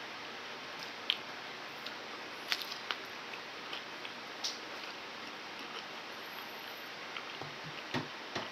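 Eating an unripe banana, peel and all: scattered small clicks and snaps of peeling, biting and chewing over a steady hiss, with a few low thumps near the end.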